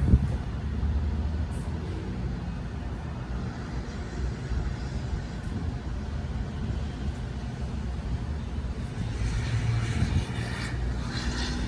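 A steady low mechanical rumble, like an engine running, with a brief higher rustling noise near the end.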